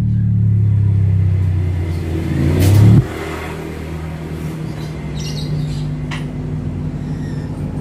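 A bank of six 6-inch ACR subwoofers in a plywood cabinet playing deep bass. A loud bass swell builds and cuts off suddenly about three seconds in, and lower, steady bass tones carry on after it.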